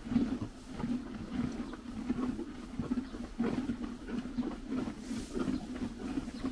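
Horses chewing hay close to the microphone: a steady rhythm of dry crunches, several a second, with the rustle of hay being pulled from the feeder.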